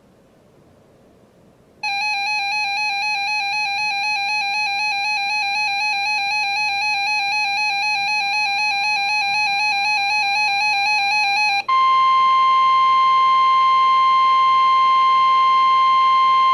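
A weather radio's electronic alert siren warbles loudly for about ten seconds. After a short gap comes a steady high NOAA Weather Radio warning alarm tone of about 1050 Hz, the tone that comes before a weather watch or warning broadcast.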